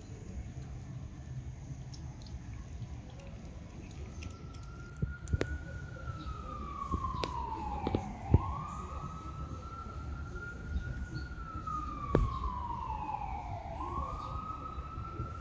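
Emergency-vehicle siren wailing, starting about four seconds in: long slow falls in pitch, each followed by a quick rise back up, twice. A few sharp clicks cut through it, the loudest about eight and twelve seconds in, over a steady low rumble.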